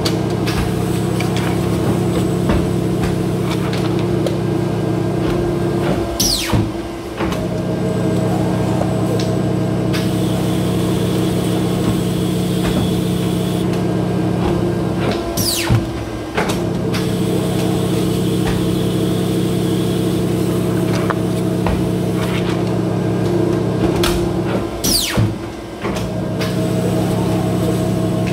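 Polar 115X guillotine paper cutter running: its motor hums steadily, and three times, about nine seconds apart, the knife cycles through a stack of paper, each cut heard as a brief dip and change in the hum with a quick falling swish before the hum settles again.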